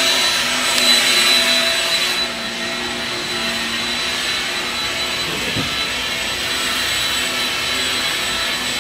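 Shark Rocket Ultra-Light Upright (HV301) vacuum cleaner running steadily on carpet, a continuous motor hiss with a high whine. It gets slightly quieter about two seconds in.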